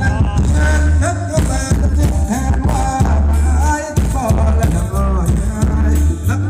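Loud Thai ramwong dance music from a band: a voice sings a wavering melody over a heavy, steady bass beat.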